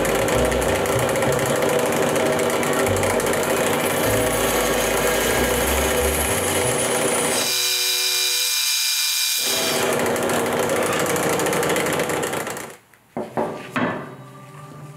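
Band saw running and cutting through the end of a wooden axe handle where it sticks out of the head's eye. The sound changes briefly about halfway, stops near the end, and a few light knocks follow.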